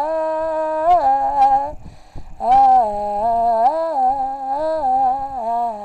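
A single voice humming a slow wordless melody, holding notes and stepping between them, with a short pause for breath about two seconds in.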